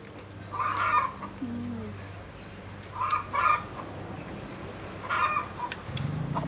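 Chickens clucking: short calls in ones and twos every couple of seconds.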